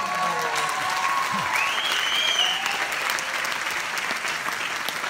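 A large cinema audience applauding in a sustained ovation: dense clapping with a few voices cheering over it.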